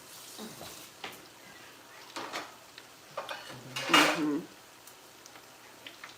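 Kitchen clatter: scattered clinks of dishes and cutlery over a faint frying hiss. A short hummed vocal sound about four seconds in is the loudest moment.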